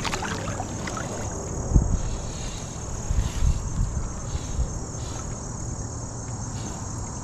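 Insects chirping steadily over a constant hiss, with a few dull low thumps between about two and five seconds in.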